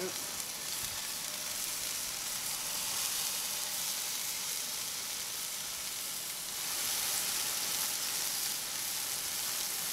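Sea scallops searing in hot oil in a skillet as they are laid in one by one: a steady sizzle that grows a little louder after about six and a half seconds.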